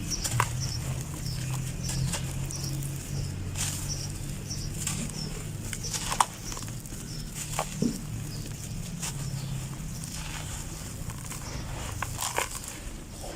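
Dry red dirt crumbling, with scattered irregular crunches and crackles over a steady low hum.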